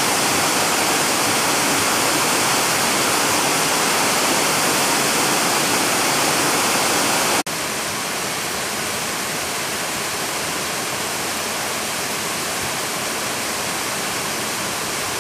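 Waterfall cascading over boulders: a steady rush of falling water, dropping slightly in level about halfway through.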